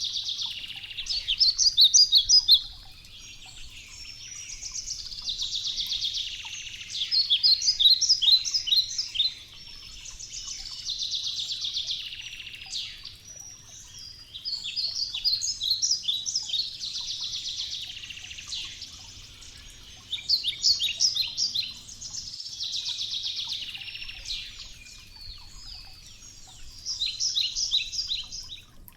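A songbird repeating the same short song about six times, roughly every five seconds. Each phrase is a high, hazy trill followed by a quick run of sharp, falling notes.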